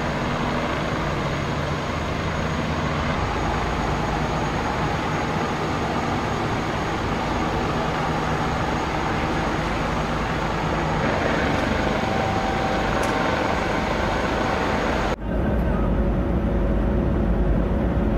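Steady engine noise with a low hum. About 15 seconds in, a sudden cut brings a louder, deeper rumble of road-paving machinery as asphalt is dumped into a paver's hopper.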